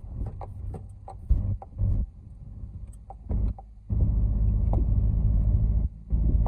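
Cabin sound of a second-generation Skoda Octavia driving over a rutted, muddy dirt track: the low rumble of tyres and engine comes in heavy surges, the longest from about four seconds in, with short knocks and rattles from the car jolting over the bumps.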